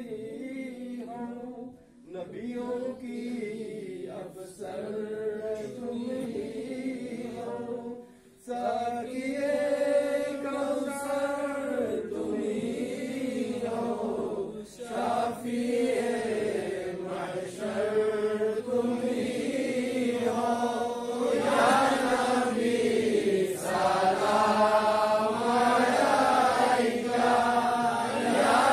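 Devotional chanting by a group of voices in unison, rising and falling in long held phrases, with short pauses about 2 and 8 seconds in.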